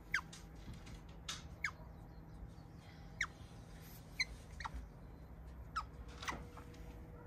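About eight short, high squeaky chirps from an animal, each sliding quickly down in pitch, at irregular intervals over a low steady background hum.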